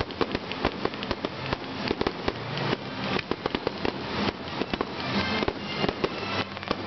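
Fireworks exploding in a rapid, continuous barrage: many sharp bangs a fraction of a second apart over a steady crackle.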